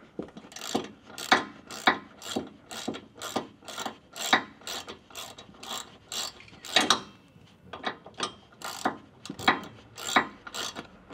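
Hand ratchet wrench clicking in short, regular strokes, about two a second, as a bolt is being loosened.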